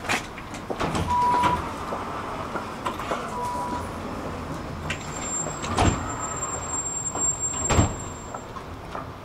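Tram sliding doors at a stop: two short high beeps, then a thin high whine for a few seconds with two heavy thumps as the doors move and shut, over the tram's steady rumble.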